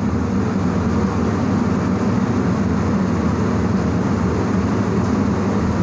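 Steady machine drone with a low hum underneath, unchanging throughout, with no separate knocks or clicks standing out.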